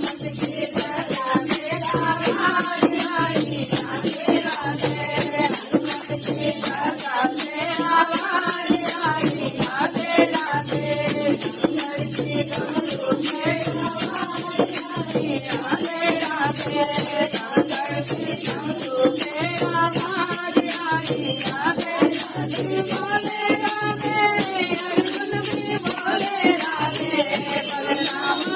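Hindi devotional bhajan to Lord Shiva, sung as a folk song, with a steady shaken rattle-like percussion keeping a fast even rhythm under the melody.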